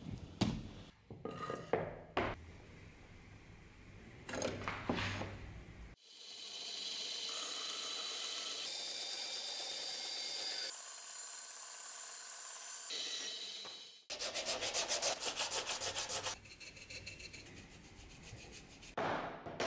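A few knocks and scrapes of metal being handled, then a band saw cutting a wooden board, a steady sound from about six seconds in that stops suddenly about eight seconds later. It is followed by quick rubbing strokes on the wood, about seven a second, as the cut piece's edge is hand-sanded, then softer rubbing.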